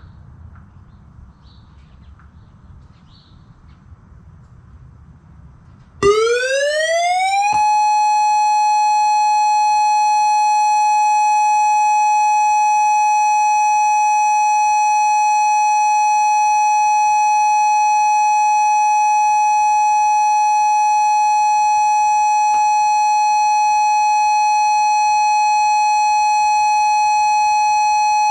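Outdoor tornado warning siren starting about six seconds in: its pitch rises for a second and a half, then it holds one steady tone, the alert signal. Before it, faint bird chirps over a low background hum.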